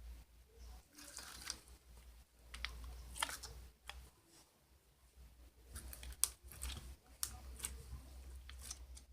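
Slime being squeezed and poked by hand, giving faint, irregular sticky clicks and crackling pops in small clusters.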